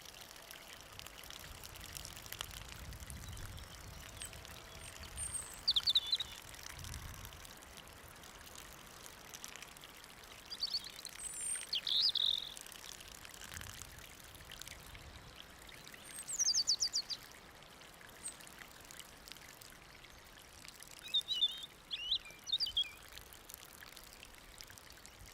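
A steady stream of liquid pouring and trickling, the sound of someone urinating, with birds chirping in short calls now and then.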